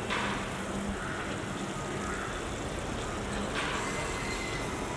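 Steady outdoor background noise like distant traffic, with a faint low hum. It is broken twice by a short scrape of a metal serving spoon in the cast iron pan, once at the start and again about three and a half seconds in.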